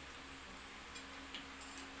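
A few faint short clicks of eating at the table, over a steady low hum.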